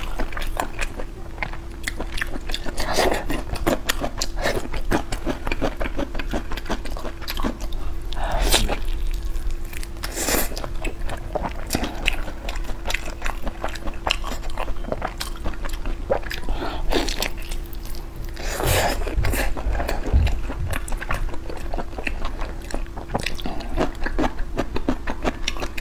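Close-miked biting and chewing of braised meat on the bone: a dense run of small mouth clicks, with a few louder bites. A faint steady hum runs underneath.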